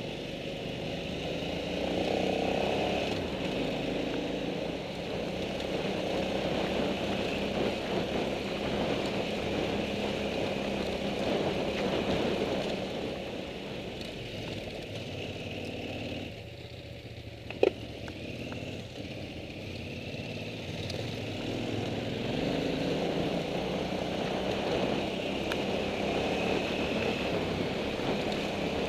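Motorcycle engine running steadily while riding up a gravel track, heard from the bike itself. A little past the middle it drops off for a few seconds, with one sharp click that is the loudest sound, then picks up again.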